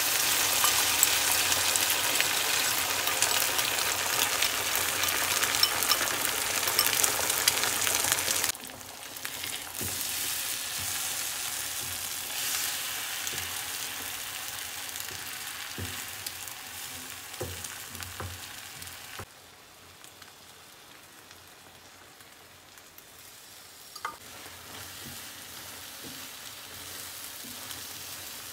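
Beaten eggs sizzling in a hot non-stick frying pan with onions and sausage, loudest as the egg first hits the pan. The sizzle drops abruptly about a third of the way in, then goes on more quietly under a spatula stirring the eggs, with a few light knocks against the pan.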